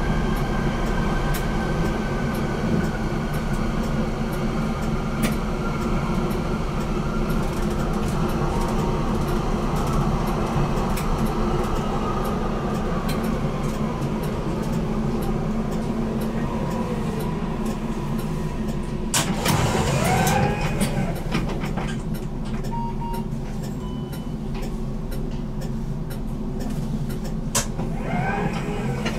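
BN GTL8 tram running over a steady low hum, its drive whine falling slowly in pitch as it slows for a stop. About two-thirds through there is a brief louder burst, then a few short beeps, and near the end a rising whine as it moves off.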